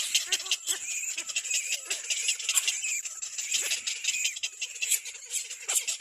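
Little black cormorant chicks squeaking and squealing: a fast, continuous run of short, high-pitched overlapping calls.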